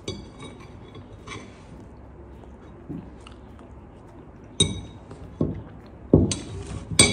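Dishes and cutlery clinking, several sharp ringing clinks spread out and bunched near the end, as a meal is finished.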